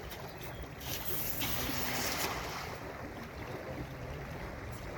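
Water and wind noise, with wind buffeting the microphone and a louder rushing hiss about a second in that lasts a little over a second.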